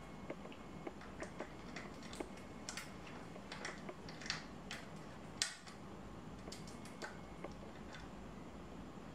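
Scattered light clicks and metallic taps of hand tools and bicycle brake parts being handled and fitted, with one sharper click about five and a half seconds in.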